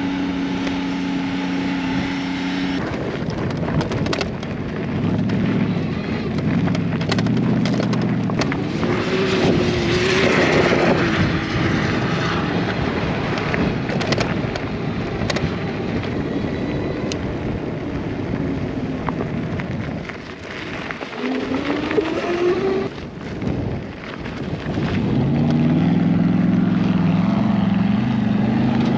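Off-road vehicle engine running with changing revs, rising in pitch a little after twenty seconds in, over rushing wind and driving noise.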